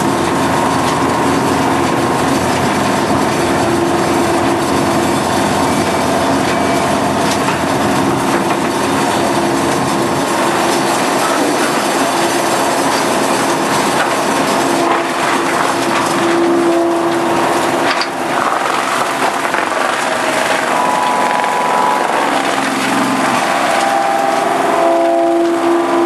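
Large Hitachi tracked wood crusher running under load, its engine droning steadily while tree stumps and logs are shredded in its feed hopper, with scattered sharp cracks and crunches of splintering wood.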